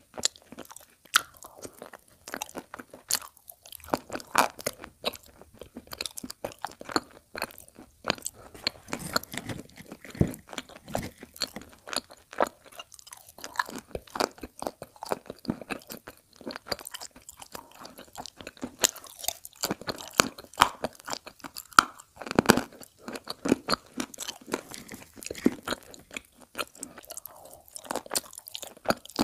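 Person chewing chunks of chalk close to a microphone: a continuous, irregular run of crunches and crackles.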